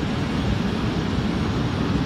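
Small mountain stream rushing over boulders through a cascade: a steady, deep rush of flowing water.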